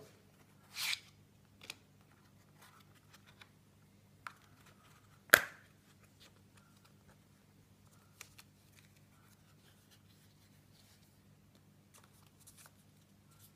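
Hands opening a small cardboard box and handling the paper and plastic bits inside: a brief rustle about a second in, a sharp snap about five seconds in, then scattered light taps and paper rustles. A faint steady hum runs underneath.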